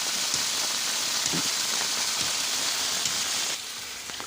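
Heavy rain falling and pattering on surfaces, a steady hiss that turns quieter about three and a half seconds in.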